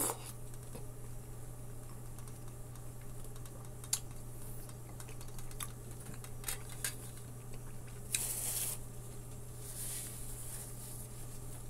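Soft eating sounds of someone chewing juicy melon, with scattered small clicks and one sharper tick about four seconds in, over a steady low hum. Near the end, a paper tissue rustles as it is wiped across the mouth.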